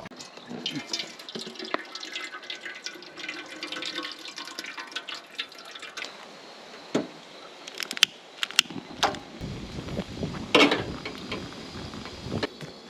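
Water pouring and splashing for about six seconds, followed by a few separate knocks and clatters of things being handled.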